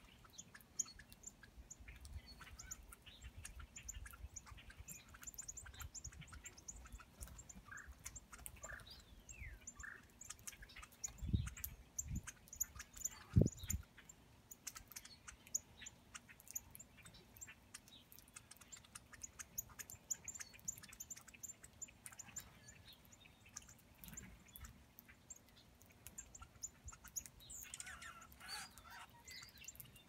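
A mixed flock of songbirds, mostly northern cardinals with red-winged blackbirds among them, giving many short high chip calls while feeding. There are three brief low thumps a little past the middle and a cluster of lower calls near the end.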